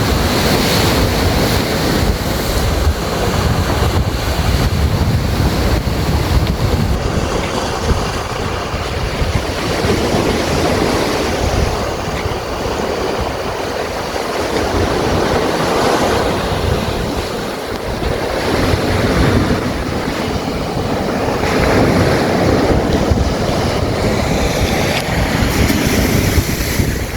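Waves washing up and back on a stony beach, with the stones rolling and rumbling in the surge; the noise swells and eases over several seconds. Wind buffets the microphone.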